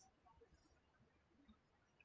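Near silence: a pause in the recording with no audible sound.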